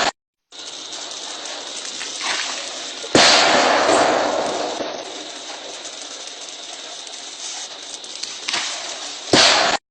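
Steady flowing water broken by loud bangs: one about three seconds in that dies away over a couple of seconds, and another near the end that cuts off abruptly into silence.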